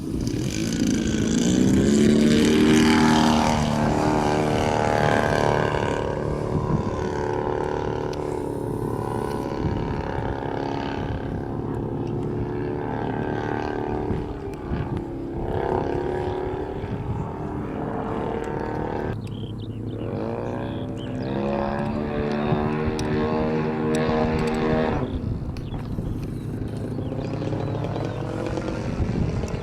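Gasoline engine of a large radio-controlled Extra 330 aerobatic plane running in flight, its pitch rising and falling over and over as the throttle and passes change, with a brief drop about twenty seconds in.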